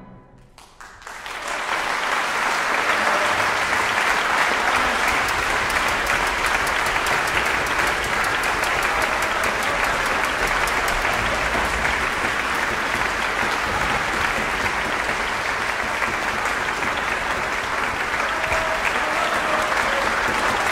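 Concert audience applauding: after a brief hush, clapping breaks out about a second in and carries on steadily and thickly.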